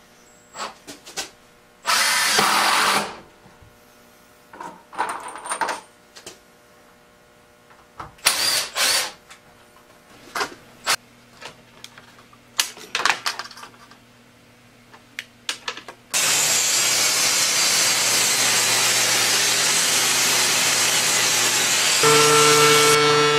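Workshop sounds: scattered short bursts and knocks of tools and wood being handled, then about two-thirds of the way in a Ryobi benchtop table saw starts and runs steadily. Near the end a steady humming tone joins the saw's noise.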